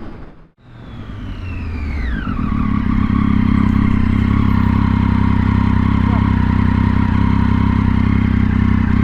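Motor vehicle engine, most likely a motorcycle, coming in after a brief break: a falling whine settles into a steady running note held at constant speed.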